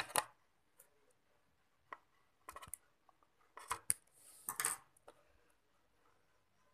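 Scattered clicks and taps, and a brief crinkle of plastic wrap about four and a half seconds in, as the thread-tied cling-film ends are taken off a boiled chicken sausage on a plate.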